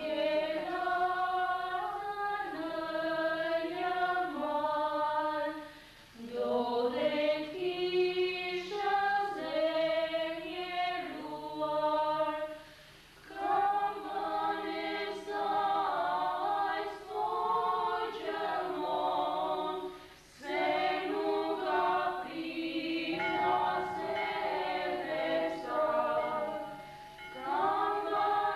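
A choir singing a slow Greek religious song, several voices together in harmony, line by line with short breaks between phrases about six, thirteen and twenty seconds in.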